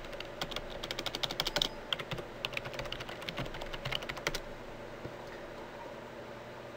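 Computer keyboard being typed on: a quick run of keystrokes for about a second and a half, then slower scattered key presses that stop a little over four seconds in, leaving a faint steady hum.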